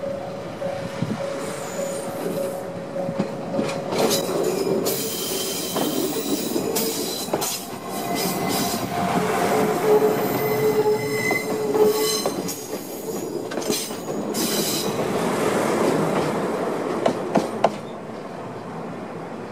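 A JR Kyushu DE10 diesel-hydraulic locomotive and a Maya 34 track-inspection car roll close past at low speed. Wheels squeal with a high-pitched screech and clack over the rail joints. A few sharp clicks come near the end, then the sound drops away as the train clears.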